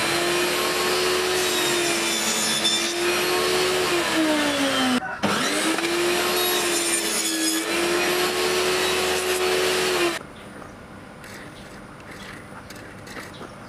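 Table saw spinning an Avanti Pro dado stack and cutting a narrow groove in plywood: a loud, steady motor whine whose pitch sags as the blades bite into the wood. It breaks off briefly about five seconds in, comes back up to speed, and stops abruptly about ten seconds in.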